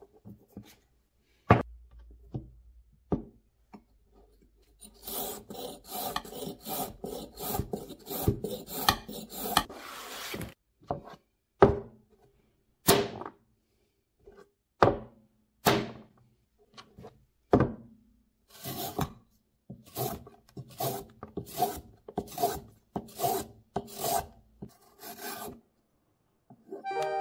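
A metal vegetable peeler rasping along a raw carrot in short strokes. It goes first in a quick run, then as slower single strokes, then in another quick run as the carrot is shaved into thin ribbons.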